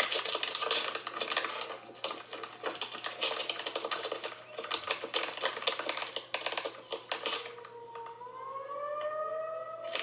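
Dense, rapid clicking and rattling for most of the stretch. About eight seconds in, a tornado warning siren starts winding up, its tone rising steadily in pitch.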